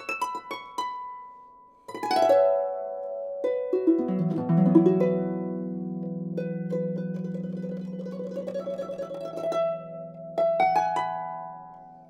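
Solo concert pedal harp playing: plucked notes, a quick downward run about two seconds in and another into the low strings about four seconds in, low notes left ringing for several seconds, then fresh plucked notes near the end.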